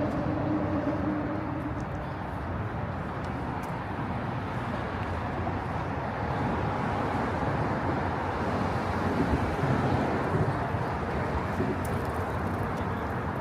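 Steady outdoor city noise with a traffic rumble.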